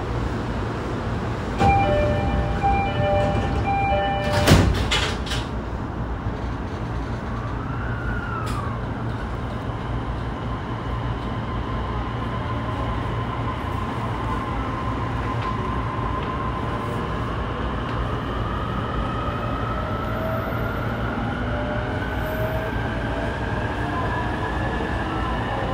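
E233-3000 series EMU heard from inside a motor car: a door chime plays in short repeated tones, the doors shut with a knock about four and a half seconds in, and then the Hitachi IGBT-VVVF inverter and MT75 traction motors whine as the train accelerates, the tone climbing slowly with speed over a steady low hum.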